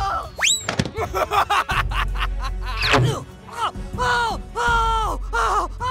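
Background music with cartoon-style sound effects: a steep rising whistle-like swoop, a quick run of sharp knocks, then a series of short pitched notes that each drop in pitch at the end.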